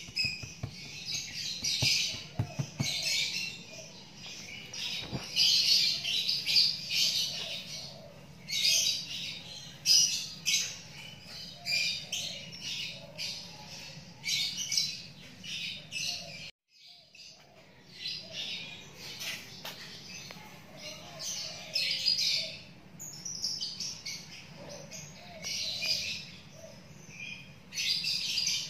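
Small birds chirping over and over in quick, high-pitched bursts, with a brief break a little past halfway.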